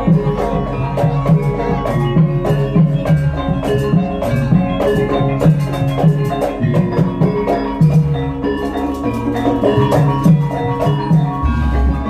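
Javanese gamelan music: metal-keyed instruments ring out a repeating melody over a steady, fast drum beat.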